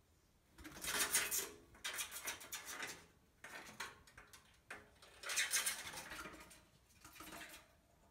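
An unidentified animal scratching and scrabbling inside a sheet-metal stove pipe, claws rasping on the metal in about five bouts with short pauses between them.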